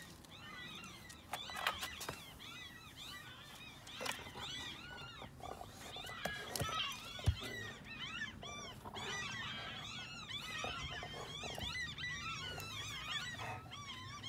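Puppies whimpering and squeaking, many short high cries that rise and fall, overlapping almost without a break. A few sharp knocks are heard, the loudest about seven seconds in.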